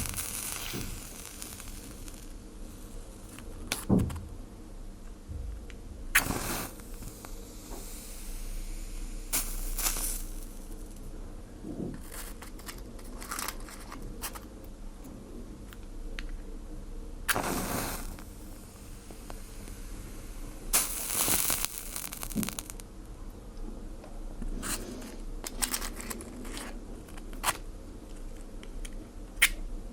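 Fire being put out: irregular sharp crackles and pops over a steady hiss, with several longer hissing surges, the loudest about two-thirds of the way through.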